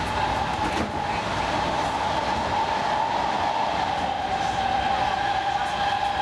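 Helsinki Metro M100 train running along the line, heard from inside the carriage: steady rumble and rail noise with a constant whine.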